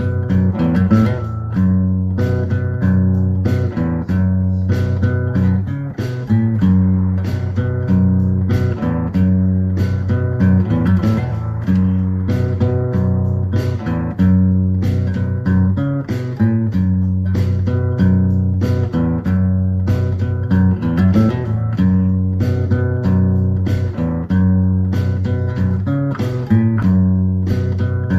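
Background music: plucked guitar over a steady bass line, with a regular beat.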